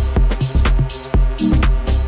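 Background electronic music with a steady beat and bass line.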